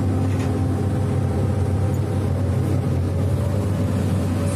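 Sany SY215C hydraulic excavator's diesel engine running steadily under working load, heard from inside the operator's cab as a constant low drone.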